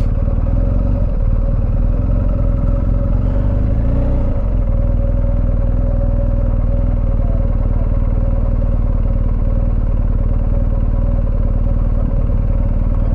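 BMW R1250 GS Rallye's boxer-twin engine running at low revs as the bike creeps along at walking pace. The revs rise gently over the first few seconds and drop back about four seconds in, then hold steady.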